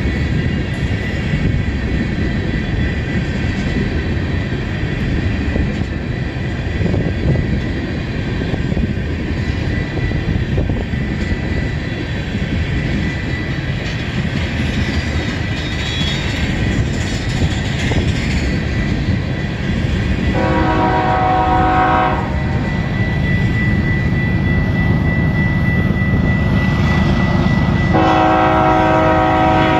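Freight train of tank cars rolling past close by: a steady loud rumble of wheels on rail with a thin high whine over it. A BNSF freight locomotive approaching on the next track sounds its multi-chime air horn twice. The first blast, about a second and a half long, comes past two-thirds of the way through, and the second starts near the end.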